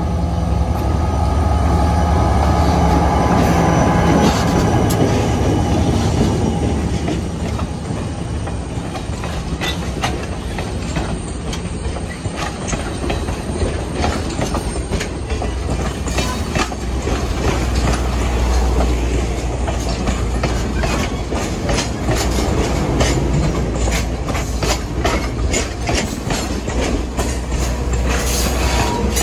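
Diesel-hauled passenger train passing close by: the locomotive's engine drones for the first several seconds, then the passenger cars roll past with a steady low rumble and repeated clicking of wheels over the rail joints.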